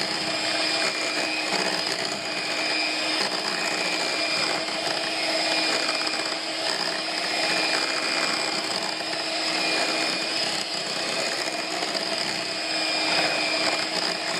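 Electric hand mixer running steadily at one constant pitch, its beaters whisking a thin banana-and-cream ice-cream base in a glass bowl.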